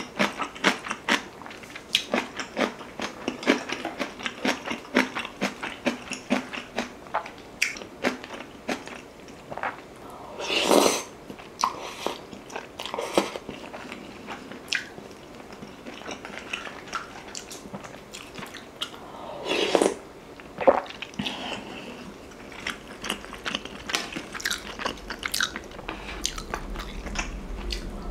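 Close-miked wet chewing and crunching of a mouthful of beef rib soup with rice and kimchi, a rapid run of small crunchy clicks. Twice, about ten and twenty seconds in, a louder, longer sound breaks through.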